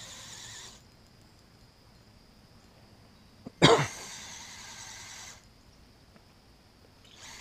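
Electric power-assist spinning reel's motor and gearbox whirring in short bursts of about a second and a half, winding line in on a hooked carp: one burst ending just under a second in, one about four seconds in, and one starting near the end. About three and a half seconds in comes a loud, short cough from the angler, the loudest sound.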